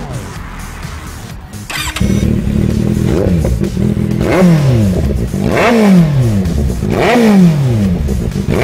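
Kawasaki Z800's inline-four engine idling, then revved in quick throttle blips through its exhaust: about five blips roughly a second and a half apart, each pitch rising sharply and falling back to idle.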